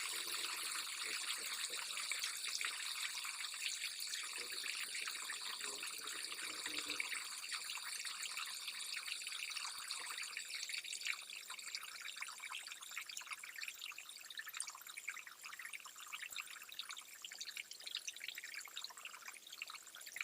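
Stream water trickling and flowing steadily, a little quieter from about eleven seconds in.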